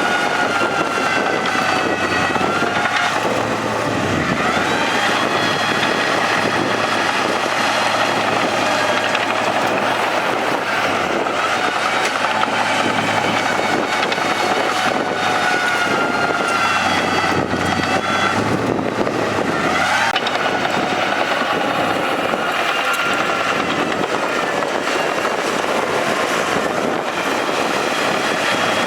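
Crawler bulldozer's diesel engine working under load, a steady heavy machine sound whose pitch rises and falls as the dozer pushes.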